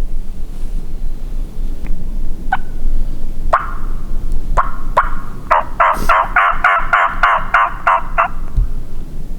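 Turkey calling: a few single clucks, then a run of about a dozen evenly spaced yelps at roughly four a second, loud and close.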